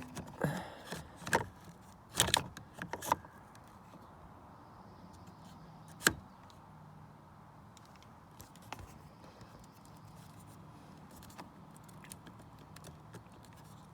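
Irregular metallic clicks and rattles of tools and small parts being handled during a repair, bunched in the first few seconds, with one sharp click about six seconds in. After that come only a faint low hum and a few light ticks.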